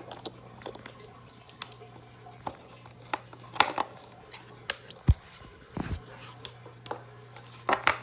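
Scattered clicks and taps of small plastic parts and AA-type batteries being handled in an open toy battery compartment, with two dull thumps about five and six seconds in.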